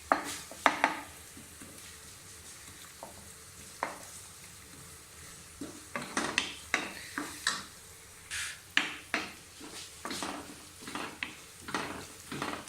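A spoon scraping and clacking against a frying pan, stirring ginger garlic paste into frying sausage, onion and green chili over a steady sizzle. The strokes are sparse at first and come quickly and often from about halfway through.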